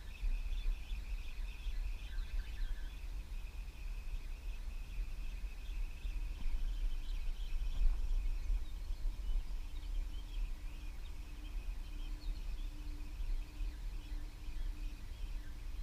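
Riverbank ambience: birds and insects chirping over an uneven low rumble on the microphone, with a faint steady hum joining about six seconds in.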